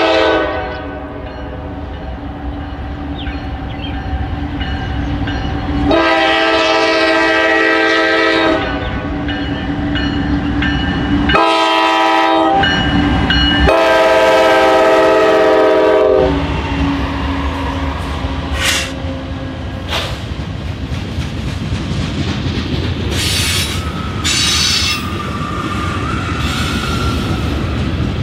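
Diesel locomotive air horn sounding the grade-crossing pattern: a blast ending just at the start, a long blast, a short one and a final long one. Under it is the rumble of the passing train, and after the horn stops there is steady rolling wheel noise with a few brief high squeals and clanks.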